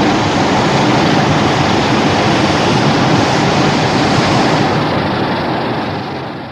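A loud, steady rushing noise from a monster-film sound effect, fading away over the last two seconds.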